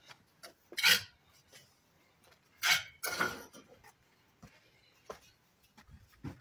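Bricklaying sounds: a steel trowel clinking and scraping against hollow ceramic bricks and mortar, with a loud knock about a second in, another loud knock-and-scrape around three seconds in, and small light clicks between.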